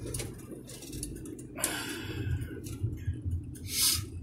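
Inside a car driving slowly: a steady low rumble of engine and tyres on the road, with a brief rush of noise about one and a half seconds in and a louder one near the end.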